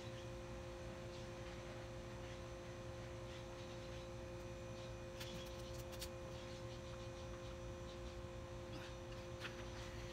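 A steady two-tone hum over a low background rumble, with a few faint clicks about five to six seconds in.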